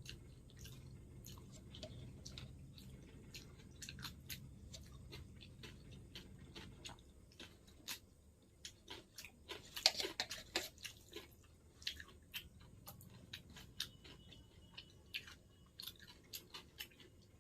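Close-miked chewing and biting of food, many small wet clicks and crunches, with a denser, louder run of crunching about ten seconds in.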